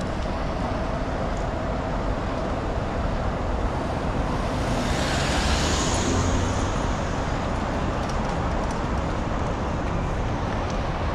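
City street traffic noise, with a vehicle passing close by about five seconds in, its sound swelling and then fading.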